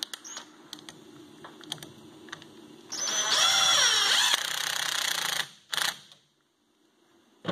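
Cordless drill with a driver bit running for about two and a half seconds, driving in a bolt on the suspension's limiter strap, its pitch dipping partway through; a short second burst follows. Before it come small clicks of hardware being handled.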